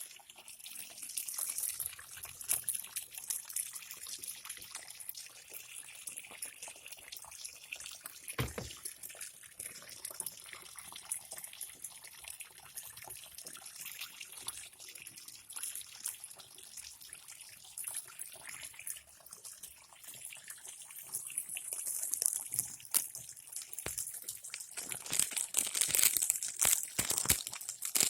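Tap water running into the wash tub of a twin-tub washing machine, a steady splashing hiss. A single knock comes about a third of the way in, and the splashing grows louder and more crackly near the end.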